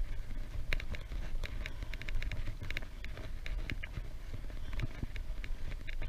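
Wind rumbling on the microphone of a camera riding on a moving bicycle, with irregular light clicks and rattles from the bike going over the lane surface.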